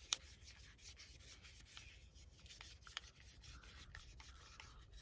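A cloth rubbing over sunglass lenses, wiping them clean: faint, repeated rubbing strokes with a few small clicks.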